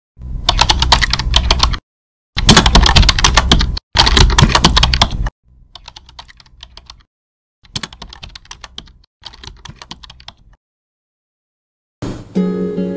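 Computer keyboard typing in six runs of rapid key clicks, the first three loud and the last three softer, stopping about ten and a half seconds in. Acoustic guitar music begins near the end.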